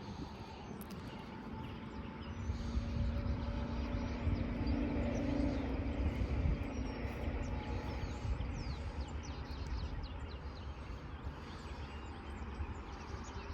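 A distant engine passing by, swelling over a few seconds with a steady hum and then fading, over a low rumble, with faint bird chirps.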